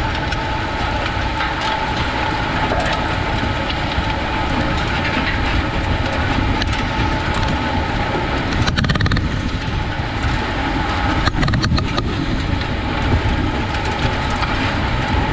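Lemken Heliodor 9 compact disc harrow working dry, cloddy soil: a steady loud rush and rattle of the discs and frame, with short bursts of sharper clattering knocks about nine and twelve seconds in.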